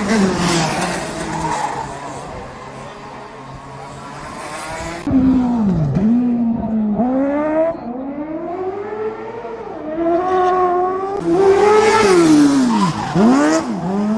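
Racing engines on a street circuit. One passes with a falling pitch at the start. From about five seconds another revs hard, its pitch rising and dropping again and again as it accelerates and lifts off through the corners, loudest just before it goes past near the end.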